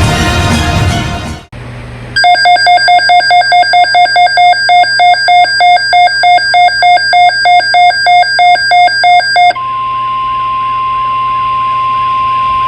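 Weather alert radio sounding an alert: rapid electronic alarm beeps, about four a second for roughly seven seconds, then the steady 1050 Hz NOAA Weather Radio warning tone. This marks an incoming alert, here a tornado watch, before the voice message. A stretch of music cuts off about a second and a half in.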